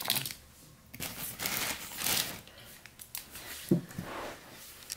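Rustling and scraping handling noises as plastic toy figures and the camera are moved about, with a short click a little before the end.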